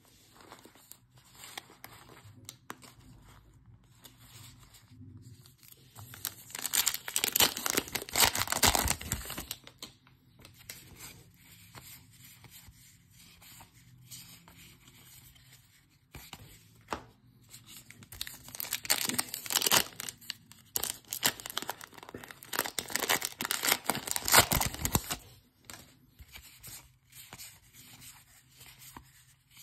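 Trading-card pack wrappers being torn open and crinkled by hand in two loud spells, about six seconds in and again from about eighteen seconds, with quieter rustling of cards being handled and flicked between.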